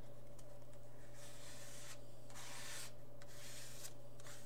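A plastic card scraping and rubbing paint across paper index cards, with two longer scraping strokes in the middle, over a steady low hum.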